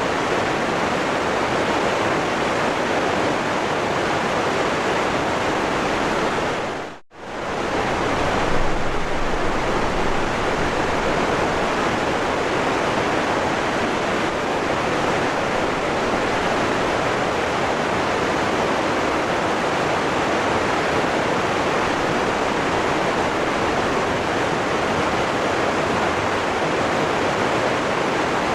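Steady rushing of a waterfall, a dense even roar of falling water. About seven seconds in, it fades out briefly and comes straight back in.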